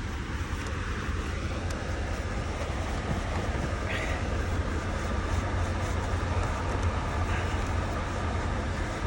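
Steady low rumble of idling diesel truck engines, with a faint short high squeak about four seconds in and another around seven seconds.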